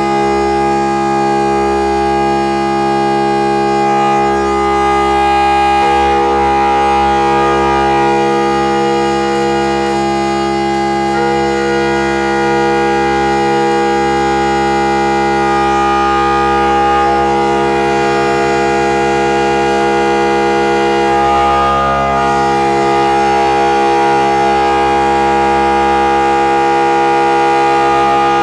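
Pipe organ pipes sounding a loud, steady chord: the 8-rank cymbal mixture of the Midmer-Losh organ's swell, held against a high-pressure trumpet stop as a tuning reference. Now and then single pipes shift in pitch as they are tuned.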